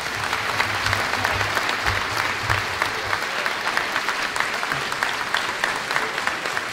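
Audience applauding: many people clapping in a dense, even patter.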